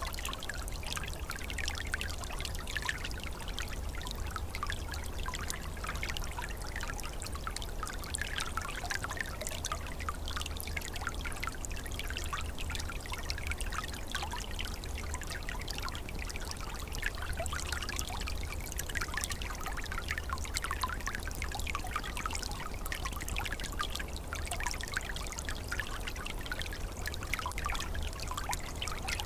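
Small forest stream flowing and trickling steadily, with a constant low rumble underneath.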